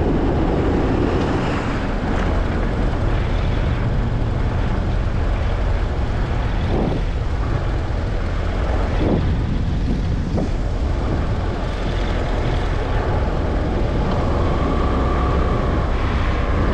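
Steady road and engine noise of a car driving at road speed.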